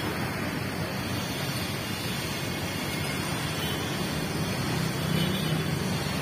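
Steady noise of city street traffic, motorcycles and cars going by, swelling a little about five seconds in.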